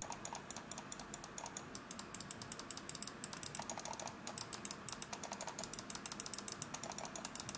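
Gaming mouse buttons on Omron switches, a Finalmouse Air58 Ninja and an Eluktronics Luminosa, being clicked over and over, several crisp clicks a second. The Air58's clicks are the louder of the two, which the reviewer puts down to its honeycomb-shell design.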